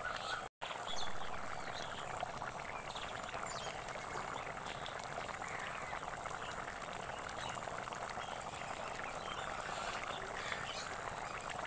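Chicken feet curry boiling steadily in a large wok over a wood fire, thick liquid bubbling and popping.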